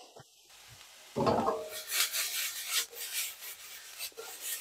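Diced vegetables scraping and sliding inside a steel sauté pan as it is shaken and tossed over a gas burner: a run of rubbing, scraping strokes that starts about a second in.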